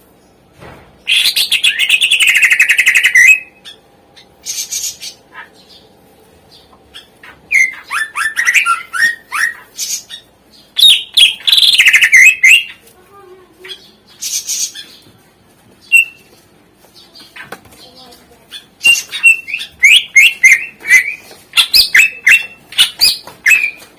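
Greater green leafbird (cucak ijo) singing a loud, varied song in bursts. A rapid trill lasting about two seconds opens it, followed by shorter whistled phrases with pauses between. Toward the end come quick runs of short notes, one after another.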